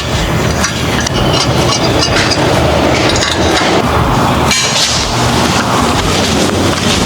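Hand hammer striking steel bar stock on an anvil, a series of irregularly spaced metallic blows and clinks.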